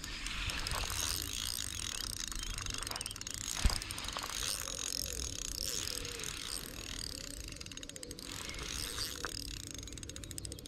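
Spinning reel ratcheting in runs of fast clicks as the line is handled, over a steady high hiss.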